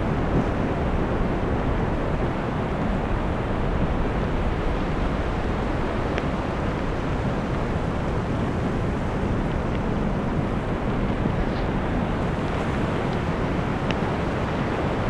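Wind buffeting the microphone outdoors: a steady, deep rushing noise that does not let up, with a couple of faint ticks.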